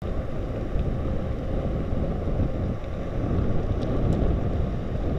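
Wind rumbling on the microphone of a camera carried on a moving bicycle: a steady low rumble.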